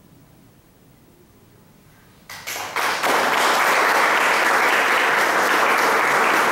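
A hushed pause, then an audience breaks into applause about two seconds in; the clapping builds quickly and holds steady.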